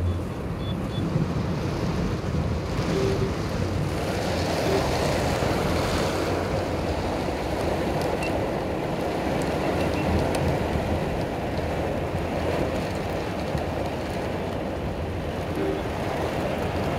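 Heavy rain falling on a vehicle's windows and body, heard from inside, with traffic on the wet road: a steady rushing noise.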